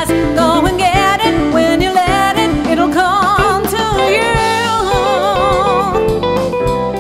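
A woman's voice sings the last chorus line of a song over guitar and band, ending in long, wavering held notes. The guitar and band carry on alone near the end.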